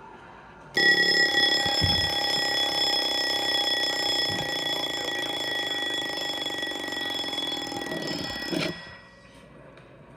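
Antique mechanical alarm clock's bell ringing very loudly and continuously. It starts suddenly about a second in, slowly gets quieter over about eight seconds, and stops shortly before the end.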